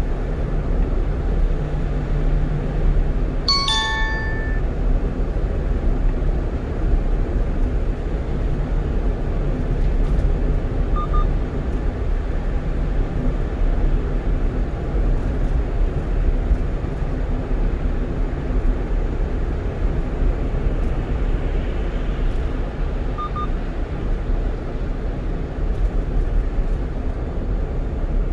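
Steady road and engine noise of a 1-ton truck running at highway speed. A short electronic chime of several bright tones sounds about four seconds in, and a faint double beep comes twice later on.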